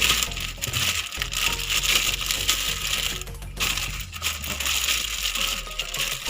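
Continuous crunchy scraping of fresh ginger being worked by hand, broken by a few short pauses, over background music.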